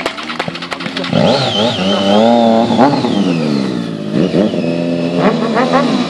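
Stunt sportbike's engine idling, then revved hard from about a second in, its pitch climbing and dropping in repeated blips, with another rev near the end.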